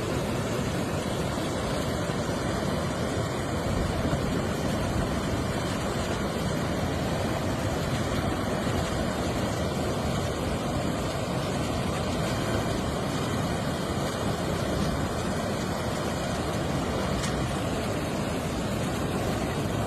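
Floodwater rushing in a steady, even roar.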